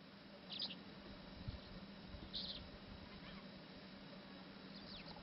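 Faint, short, high-pitched bird chirps, two of them about two seconds apart and a fainter one near the end, over a quiet outdoor background with a steady low hum.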